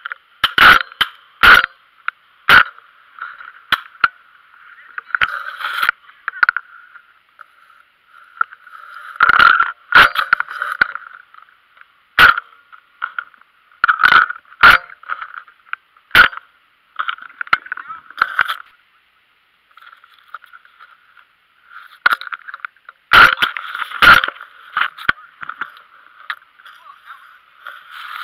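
Shotgun shots recorded through a gun-mounted action camera: three sharp cracks in about two seconds near the start, then more scattered cracks through the rest, with a steady hiss between them.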